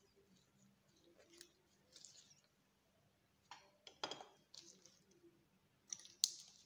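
Faint, scattered clicks and light taps of small objects being handled, loudest about four seconds in and once more near the end.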